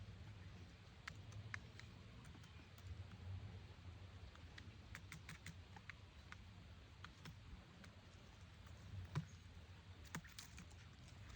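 Near silence, with faint, scattered light clicks and ticks over a low background rumble.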